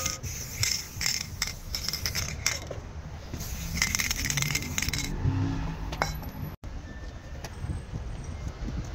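Aerosol spray-paint can: the mixing ball rattles in quick clacks as the can is shaken, then a steady spraying hiss lasts about a second and a half. After a brief dropout the sound turns to a low, steady outdoor background.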